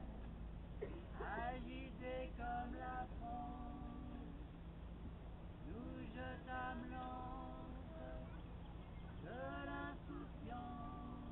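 Cast voices singing live without amplification, short phrases of held notes with pauses between them, over a steady low rumble.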